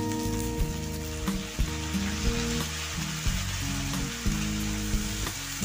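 Sliced drumstick pods and potato wedges sizzling in hot oil in an iron kadhai, the sizzle picking up as the drumsticks go into the pan, with background music underneath.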